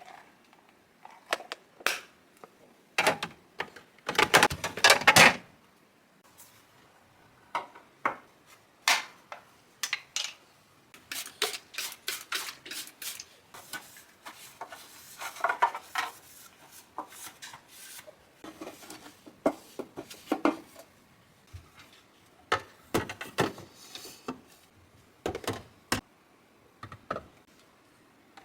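Household items being handled in a kitchen: scattered clicks, taps and knocks of dishes and containers being moved and set down, with a louder clatter about four seconds in.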